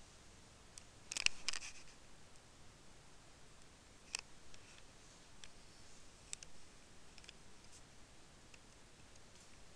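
Faint computer mouse clicks: a quick cluster of several clicks a little over a second in, then single clicks about four and six seconds in, with a few fainter ticks between.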